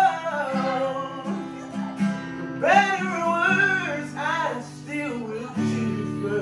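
A slow love song sung over guitar accompaniment: between lines the singer holds and bends drawn-out notes without words, with sustained chords underneath.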